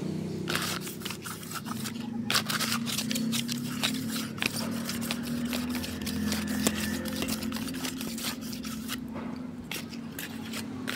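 Thin cardboard rubbed and scraped by hand over an aluminium motorcycle cylinder block, drying its freshly polished bore in irregular scratchy strokes.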